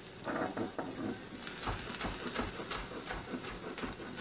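Chef's knife chopping green onion on a wooden cutting board: a run of quick, uneven taps of the blade striking the board.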